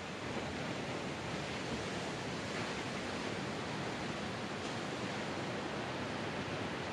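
Small ocean waves breaking and washing onto a sandy beach: a steady rushing surf noise.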